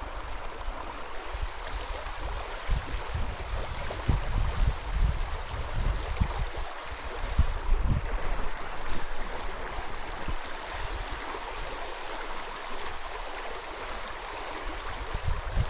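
Shallow stream water rushing steadily over riffles, with irregular low rumbles on the microphone.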